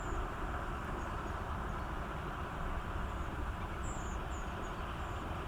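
Steady wind rumble on the microphone over an outdoor hiss, with a few short, faint, high bird chirps here and there.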